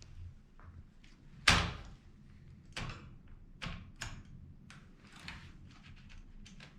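Manual typewriter clacking: several sharp strikes at uneven spacing, the loudest about a second and a half in.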